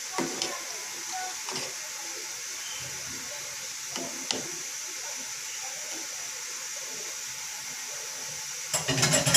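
A metal spoon stirring thick cooked urad dal in an aluminium pot, with a few light clinks against the pot over a steady hiss. A short run of louder knocks comes near the end.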